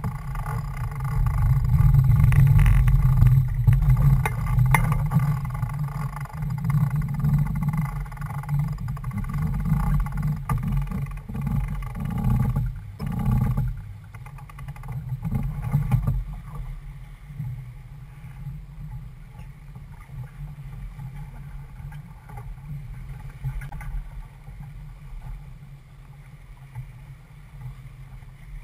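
Wind on the microphone and water rushing past the hull of a C&C 31 sailboat heeling under sail through choppy water. Louder through the first half, with a few brief knocks about halfway, then easing after about sixteen seconds.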